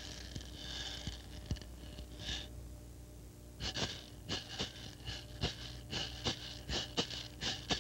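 Heavy breathing: a long breathy hiss, a pause of about a second, then quick sharp breaths at about three a second.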